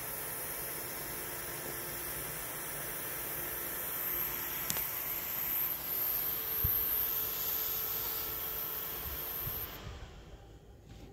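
Ferrite transformer of a home-built Tesla resonator driver circuit running with a thin, very high-pitched whine over a steady hiss, with a faint click about halfway through. The whine and the hiss cut off suddenly near the end, as the circuit is shut off.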